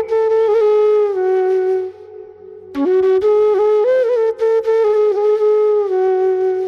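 Bamboo flute (bashi) playing a slow, plaintive melody of long held notes with small slides and ornaments. It breaks off about two seconds in, resumes a moment later, and stops near the end.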